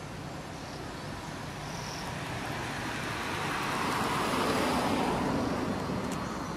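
A road vehicle passing by: its noise swells over a few seconds, peaks about two-thirds of the way through, and fades again.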